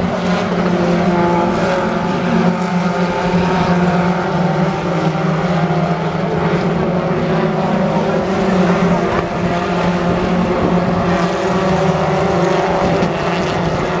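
A pack of British Touring Car Championship race cars running through a corner together, their turbocharged four-cylinder engines overlapping in a loud, steady mix of engine notes.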